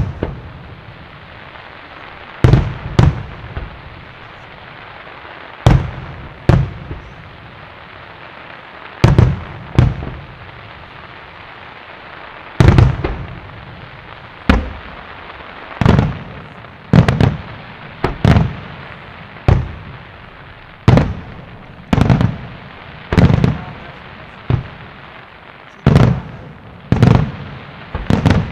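Aerial fireworks shells bursting: about twenty sharp booms, often in pairs a second apart, each followed by a short fading echo. A steady hiss runs underneath.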